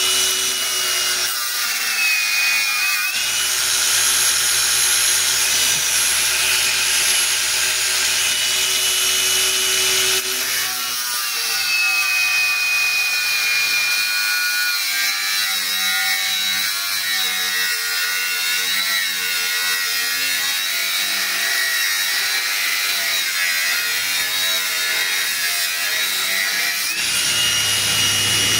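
Brushless cordless angle grinder cutting a steel ring on a flywheel, a steady grinding whine whose pitch sags when the disc bites and rises again near the end as the load comes off.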